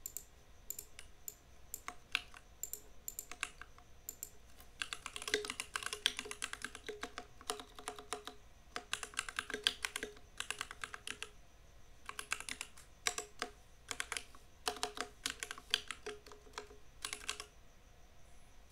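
Typing on a compact mechanical keyboard: scattered single key presses at first, then fast runs of keystrokes in bursts a couple of seconds long with short pauses between.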